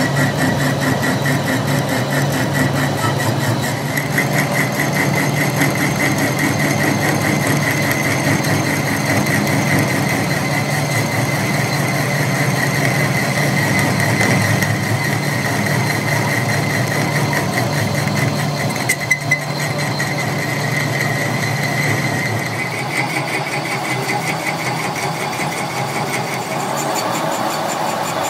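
Metal lathe running under cut, a tool bit turning the steel trunnion shaft bushing: a steady low motor and gear hum with a high, even cutting whine. A couple of sharp clicks come about two-thirds through, and the sound eases a little soon after.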